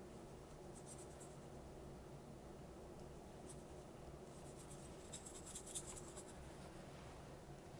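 Faint brushing of a watercolour brush on paper: a few short strokes about a second in, and a longer run of strokes between about four and six seconds.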